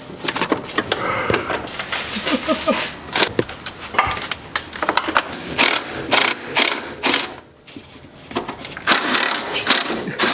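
Hand tools working in a car's engine bay: a ratchet clicking in short irregular runs among metallic clinks and clatters, as the distributor and coil are unbolted.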